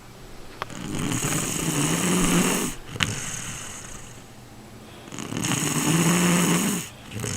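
A person snoring in sleep: two long, loud, rasping snores about four seconds apart, with quieter breathing between them. A sharp click comes just after the first snore.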